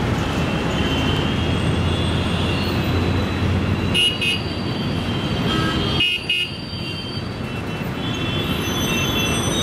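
Busy road traffic rumbling steadily, with vehicle horns tooting several times, in short sharp blasts about four and six seconds in.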